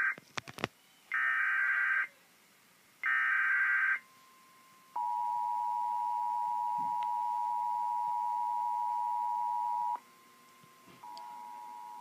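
Emergency Alert System broadcast from a laptop speaker: the last of the SAME header data bursts, each about a second long and a second apart, then the two-tone attention signal held steady for about five seconds before it cuts off. About a second later a quieter attention tone starts again.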